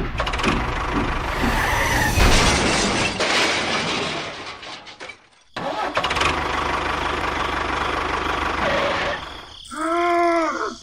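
A vehicle engine running with a dense, rough noise that cuts out briefly about halfway, then picks up again and runs steadily. Near the end comes a short tone that rises and falls in pitch.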